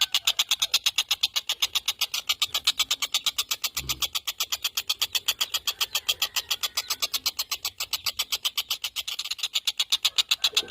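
Tengkek buto kingfisher calling: a long, fast, even chatter of sharp, high notes repeated several times a second.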